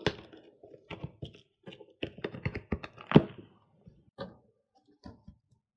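Packing tape on a corrugated cardboard shipping box being slit with a small plastic safety cutter, with irregular scrapes, taps and knocks as the box is handled; the loudest knock comes about three seconds in.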